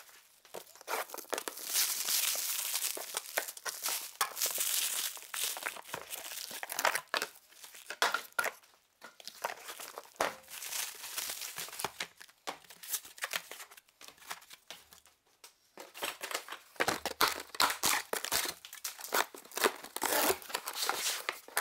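Packaging being torn open and crumpled while unpacking: cardboard and packing material rustling, crinkling and tearing, with irregular clicks and knocks. A short pause about two-thirds of the way through.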